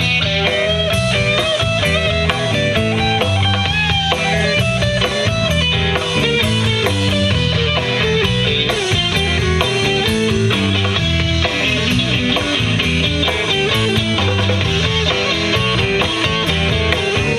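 Rock music with electric guitar, bass and a steady beat, playing loudly throughout.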